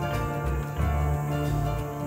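Instrumental background music with plucked guitar-like notes over a pulsing bass line.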